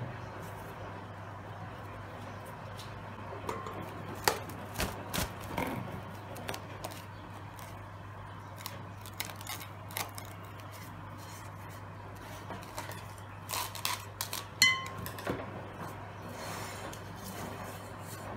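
Plastic cling film crinkling and crackling as it is handled and stretched over a glass mixing bowl, with scattered light clicks and taps and one sharper snap about three-quarters of the way in, over a faint steady low hum.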